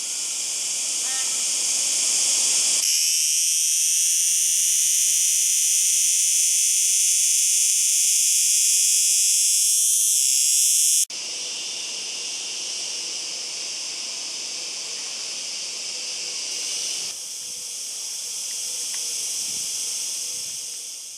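Cicada singing: a continuous high-pitched buzz that shifts abruptly in loudness and tone a few times.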